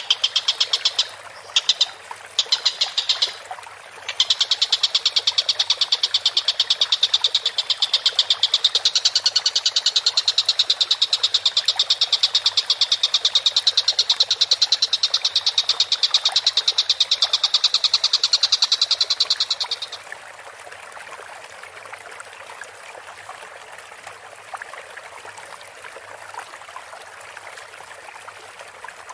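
Tengkek buto kingfisher calling in a fast, even trill of high notes. The call comes in short bursts for the first few seconds, then runs unbroken until it stops about two-thirds of the way in, over a steady background of running water.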